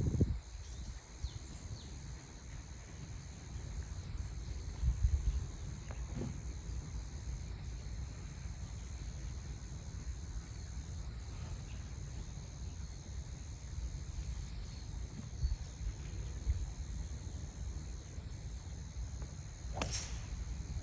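Wind buffeting the microphone as a low rumble outdoors, with a steady faint high whine behind it and a single sharp crack near the end.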